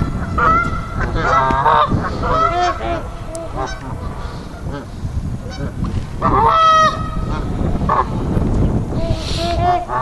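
A flock of Canada geese honking loudly, many short calls overlapping and repeating throughout.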